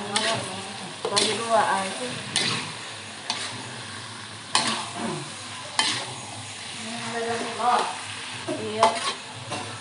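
Spatula stirring and scraping a frying pan of chili sambal with salted squid and petai, the oil sizzling steadily underneath. The scrapes come about once a second, at uneven intervals, some with a short squeak.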